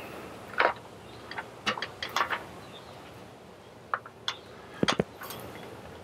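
Irregular light clicks and knocks of an aluminum greenhouse gutter being pushed and seated onto a corner post, with a couple of louder knocks about five seconds in.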